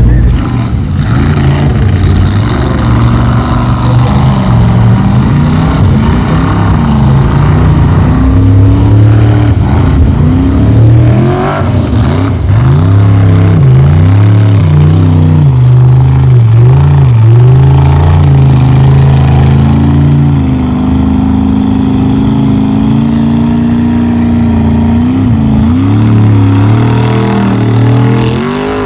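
Formula Offroad race truck's engine revving hard, its pitch repeatedly climbing and dropping as the throttle is worked, then held high and fairly steady for several seconds before it falls away near the end.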